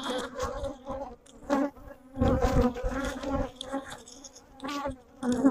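Honeybees buzzing close around the microphone, the buzz swelling and fading several times as bees fly past. The colony is stirred up after the hive was opened and honey spilled.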